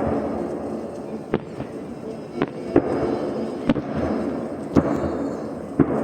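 Fireworks salute going off: sharp bangs of bursting shells about once a second, seven in all, over a continuous rumble and crackle of further bursts.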